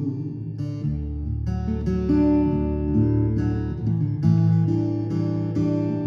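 Solo acoustic guitar played live, an instrumental passage of picked and strummed notes ringing over a held low bass note that comes in about a second in.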